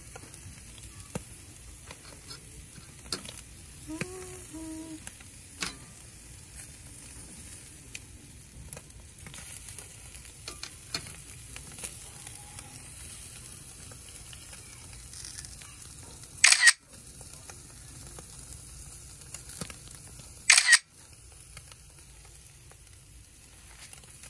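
Mackerel scad and a burger patty sizzling on a charcoal grill, a steady low hiss dotted with small crackles and pops. Two brief loud bursts of noise come about four seconds apart, past the middle.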